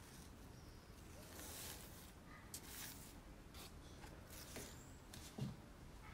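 Faint handling sounds of a handmade book: brief rustles of paper, card and ribbon as its ties are undone, with a soft thump a little after five seconds in. A few faint bird chirps in the background.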